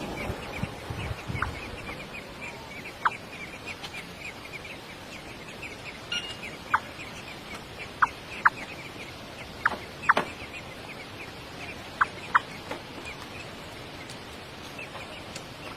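Baby birds cheeping rapidly and steadily, several short high peeps a second, typical of chicks begging to be fed. A dozen or so louder, very short, sharp sounds are scattered among them.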